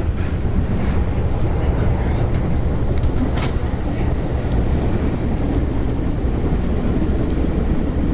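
Steady rumble and rush of a VIA Rail passenger train passing close by, heard through a window, with a few faint clicks about three seconds in.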